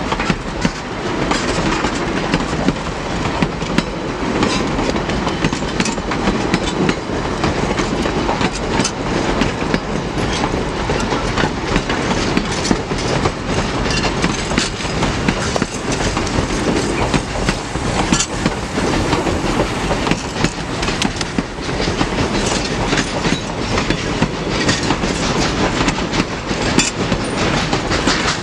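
Durango & Silverton narrow-gauge train passing close by, its wheels clicking over the rail joints in a steady clickety-clack along with rolling rumble.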